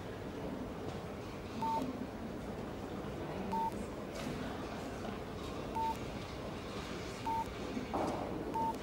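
Mobile phone keypad beeping as keys are pressed: five short beeps of one pitch at uneven intervals, over faint room noise.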